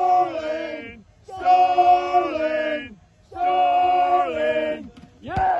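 A crowd of fans, mostly men, chanting in unison: three long held notes, each ending in a downward slide, with a crowd yell starting near the end.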